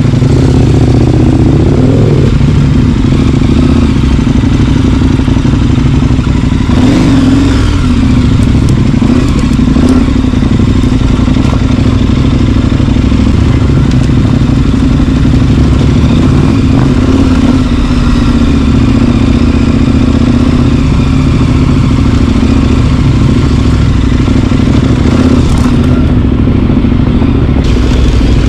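A vehicle's engine running steadily while driving over a rough off-road track, with occasional knocks and clatter from the bumps.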